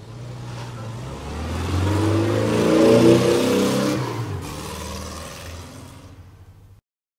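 Intro sound effect for an animated logo: a pitched, engine-like swell that builds to a peak about three seconds in, fades, and cuts off suddenly near the end.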